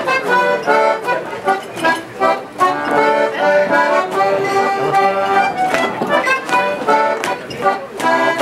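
Accordion playing a traditional dance tune, a melody over chords with a steady beat.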